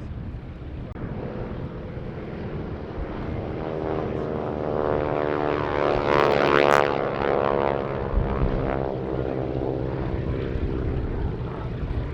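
Boeing Stearman biplane's 450 hp Pratt & Whitney radial engine and propeller in a low flypast: it grows louder, peaks about six and a half seconds in, then drops in pitch and fades as it passes.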